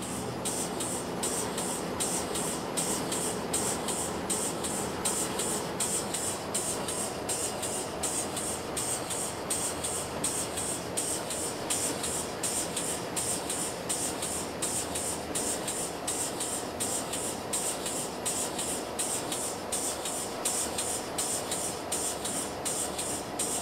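Steady running noise inside a locomotive cab as it rolls slowly along the track, with a low hum and a faint hiss that pulses about twice a second.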